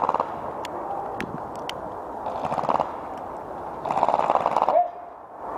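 Airsoft guns firing on full auto: a short burst at the start, another about two and a half seconds in, and a longer, louder one about four seconds in, with a few single sharp cracks in between.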